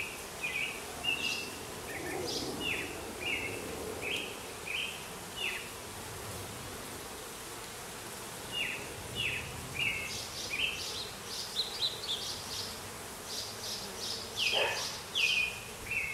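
Honeybees buzzing around an opened hive as a steady hum. Over it a bird calls again and again in short, falling chirps, several a second in places, and these chirps are the loudest sounds.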